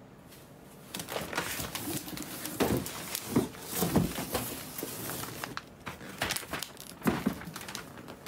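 Irregular rustling and crinkling of gift packaging being handled, starting about a second in, with scattered small clicks and knocks.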